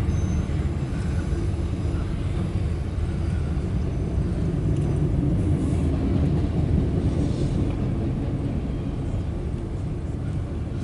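Loaded autorack freight cars rolling past: a steady low rumble of steel wheels on rail, easing slightly near the end.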